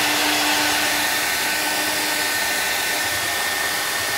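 Handheld hair dryer running steadily, drying a poodle's wet coat: a constant rush of air with a faint high whine.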